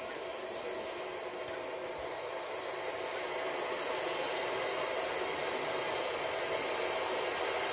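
Steam hissing steadily from a standing 15-inch gauge steam locomotive, growing slightly louder about halfway through.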